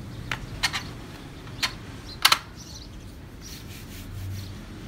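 Hands handling a floured sheet of noodle dough on a board: light rubbing with a few sharp taps and clicks, the loudest pair about two seconds in.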